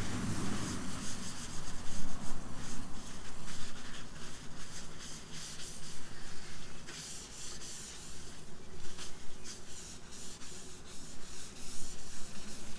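Repeated back-and-forth hand rubbing on the car's sill bodywork, a quick irregular series of abrasive strokes typical of hand sanding or rubbing down paint and filler.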